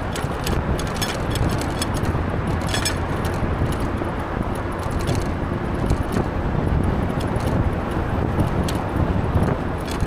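An e-bike riding on city streets: a steady low rumble of wind and road noise, with frequent short metallic rattling clicks as the bike jolts over the pavement.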